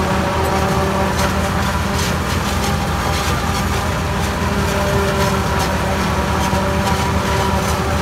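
New Holland FX48 forage harvester chopping standing maize and blowing the chop into a trolley, with a Ford 4000 tractor running alongside to tow it. Together they make a steady engine and machinery drone with a constant hum of several held pitches.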